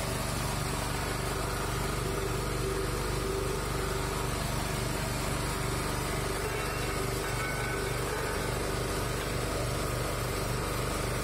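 Electric screw oil expeller running steadily while pressing candlenut kernels, a continuous low mechanical drone.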